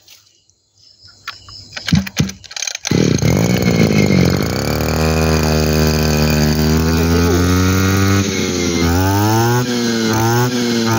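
22cc two-stroke brush cutter engine starting up about three seconds in and settling to a steady idle, then revved up and down several times from about nine seconds in.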